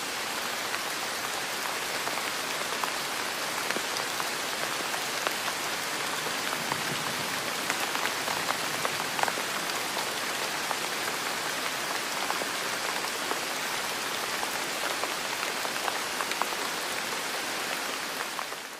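Steady rain ambience used as a background sound bed: an even hiss of rain with scattered ticks of single drops. It fades out at the very end.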